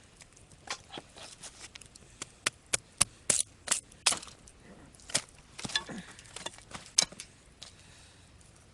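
Batoning firewood: a knife blade driven through kindling by strikes of a wooden baton, giving irregular sharp knocks and cracks of splitting wood, busiest a few seconds in.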